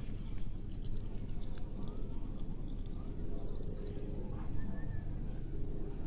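A white domestic duck dabbling in shallow water, with small splashes and clicks from its bill, over a steady low rumble. A faint high chirp repeats about twice a second.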